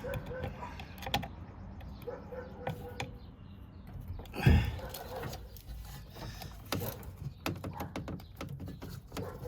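Plastic pipe fittings being worked into place by hand: scattered small clicks and knocks, with one louder thump about halfway through.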